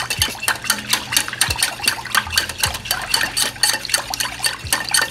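Wire whisk beating a thin sauce in a glass bowl, its wires clicking against the glass in a rapid, even rhythm of about six strokes a second.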